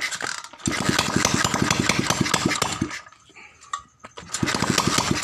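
Honda C90's 90 cc single-cylinder four-stroke engine firing up and running in a rapid even beat for about two seconds, then faltering, then catching again and running briefly near the end. It will not hold an idle, and the mechanic reckons the idle needs raising a little.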